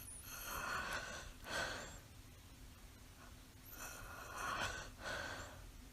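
A sleeping person breathing: two audible breaths about three and a half seconds apart, each an airy rush of air in two parts, in and then out.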